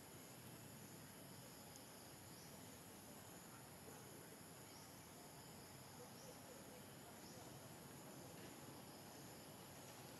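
Faint outdoor ambience: a steady high-pitched insect drone, with soft chirps repeating every second or so.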